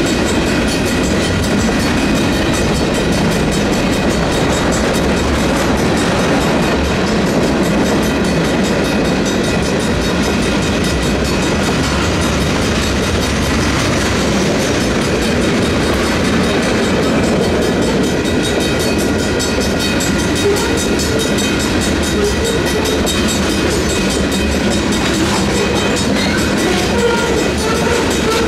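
Freight cars rolling past over the rails, a steady rumble with wheel clatter, while the grade-crossing bells ring without pause: an electronic crossing bell and a Griswold mechanical bell.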